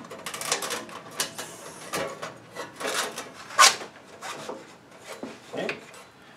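A sanding belt being fitted by hand onto a wet belt sander's wheels, with the motor off: irregular rubbing, scraping and small knocks of the belt against the machine. One sharper scrape stands out about three and a half seconds in.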